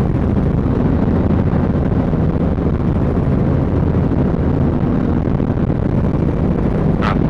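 Robinson R44 helicopter's engine and rotor running steadily on the ground, heard from inside the cabin as a loud, even drone.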